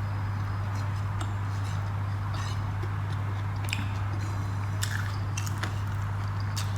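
Close-up eating sounds: chewing with wet squishing and small mouth clicks now and then, over a steady low hum.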